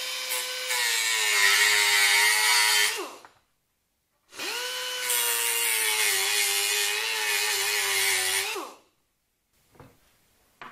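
Small handheld electric sander/grinder run twice, about three seconds and then about four seconds, sanding down a plastic-welded repair on a plastic timing belt cover. Its motor whine sags slightly in pitch as it bites into the plastic and winds down when released each time.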